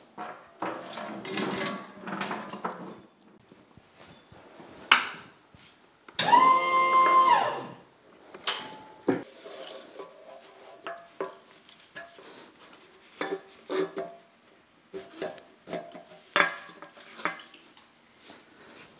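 Irregular metal clanks and knocks, some ringing briefly, from handling steel rigging and cast iron. About six seconds in, a pitched tone rises, holds for about a second and falls away.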